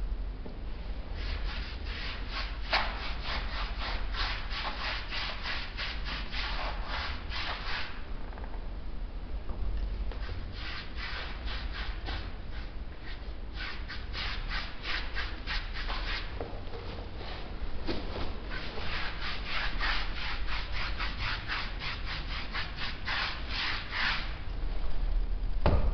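A small hand tool rubbed in quick back-and-forth strokes, about four a second, over a wall coated with gritty sand paint. The strokes come in three runs with short pauses between.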